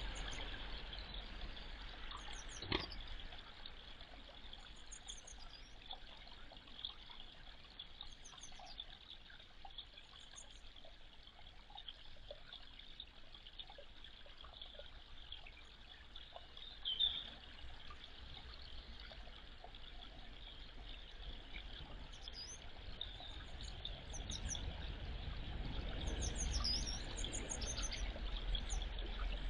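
Faint, steady trickle of water in a small garden pond, with scattered short, high-pitched chirps of small birds, a few early on and more near the end.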